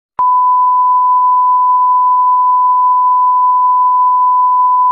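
Steady 1 kHz sine test tone, the reference tone that goes with television colour bars, switching on abruptly with a click just after the start and holding at one loud, unchanging pitch.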